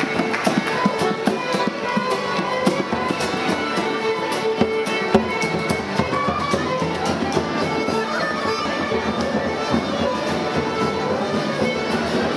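A tune played live by a small walking folk band of fiddle, tin whistles and guitar.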